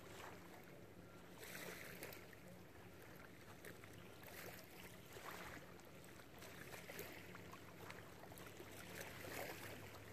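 Faint outdoor background: a low steady hum, with soft swells of noise rising and falling now and then.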